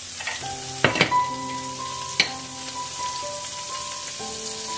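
Butter melting and sizzling in a hot stainless steel pan, with a few sharp clinks about a second in and again near the middle as the butter dish and knife are set down on the glass hob. Soft background music with held notes plays under it.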